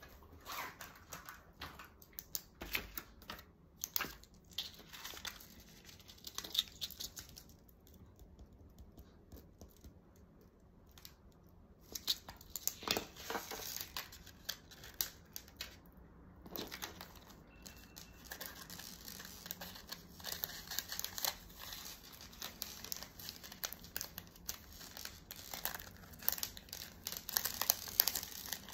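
Clear plastic packing bag crinkling and rustling while a necklace and card are handled and packed into it, with small clicks and taps throughout and a quieter pause in the middle.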